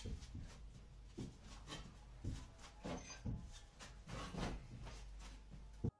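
Faint, scattered knocks and rustles of handling over a steady low hum, without speech.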